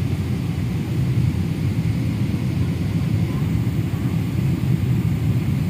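Steady low rumble inside the cabin of an airliner rolling on the ground after landing, engine and airframe noise without change in pitch or loudness.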